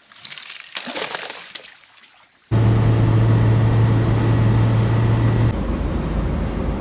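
Light crackling and rustling handling noise, then an abrupt cut to loud, steady vehicle running noise with a strong low hum. The hum stops suddenly near the end while the steady road-and-engine noise carries on.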